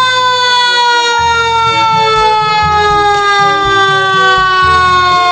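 Fire engine siren sounding one long, steady tone that falls slowly in pitch.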